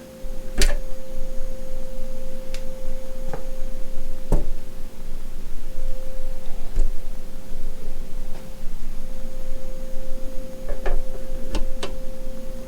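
A steady electronic tone holds one pitch, under a hiss with a few scattered faint clicks.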